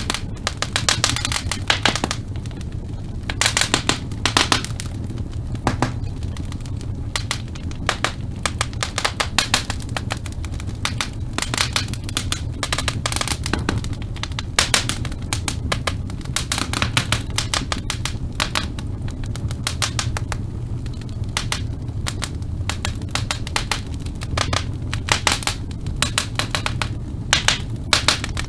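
Wood fire crackling in a fireplace: irregular sharp pops and snaps, some in quick clusters, over a steady low rumble of the burning fire.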